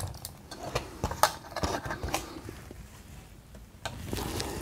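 Bench handling noise: several light clicks and rubbing as a stripped solid copper jumper wire is picked up with tweezers and held against a circuit board, the sharpest click about a second in.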